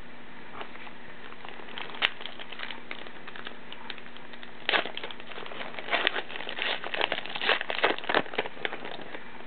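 Trading-card pack wrapper being torn open and crinkled, a run of sharp crackles from about five seconds in. Before that, light handling sounds and a single sharp click about two seconds in.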